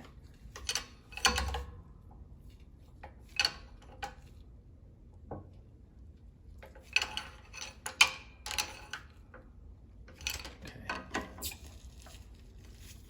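Scattered metal clinks and knocks from steel tools and press plates being handled on an axle shaft while a new seal is seated, with denser runs of clinks in the second half.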